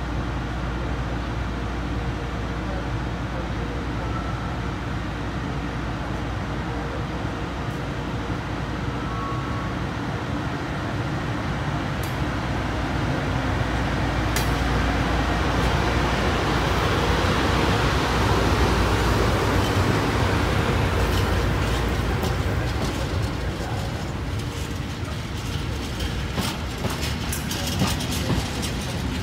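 Trenitalia E652 electric locomotive pulling a container freight train slowly away: a steady hum from the locomotive that swells as it draws past, then the wagon wheels clicking over rail joints near the end.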